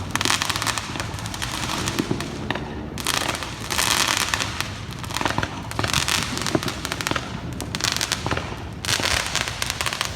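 Firecrackers and fireworks going off in rapid, overlapping crackles, coming in waves with short lulls between them.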